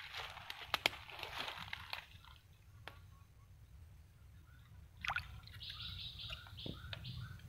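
A hand sloshing and dabbling in shallow swamp water in a muddy hole, with drips and a few small sharp clicks. Faint chirping comes in about five seconds in.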